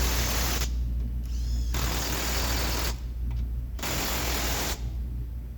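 Cordless impact wrench hammering in three bursts of about a second each, driving home the subframe bolts on a Mazda CX-9. A steady low hum runs underneath.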